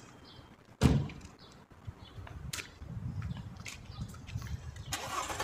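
Street sounds: a single sharp knock about a second in, then a low rumble of traffic from about two seconds in, with a car coming closer near the end.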